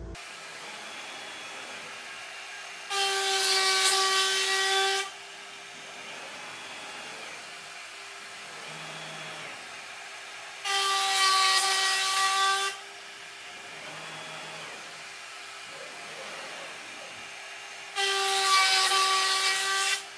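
CNC router's 1.5 kW air-cooled spindle whining steadily at 24,000 RPM, with a 1/4-inch upcut spiral bit. Three times, for about two seconds each, it grows much louder as it plunges through a quarter-inch-deep straight groove in plywood at a high feed rate of 850 to 900 inches per minute.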